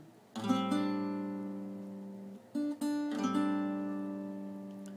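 Acoustic guitar playing an A minor 11th chord: the chord is struck about half a second in and left to ring and fade, a couple of short notes follow, and it is struck again and left to ring.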